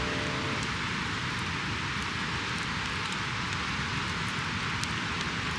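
Wood campfire burning in a fire pit: a steady hiss with a few sharp crackling pops. A tune fades out in the first half-second.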